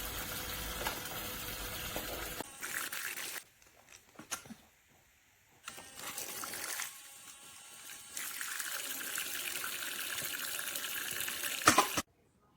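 Water running from a toy kitchen sink's small battery-powered faucet, stopping for a few seconds and then running again. A sharp click comes near the end.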